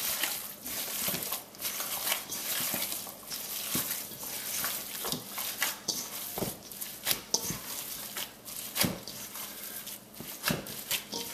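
Gloved hands kneading a wet raw ground-meat meatloaf mixture in a stainless steel bowl: irregular squishing and squelching, with occasional sharper smacks.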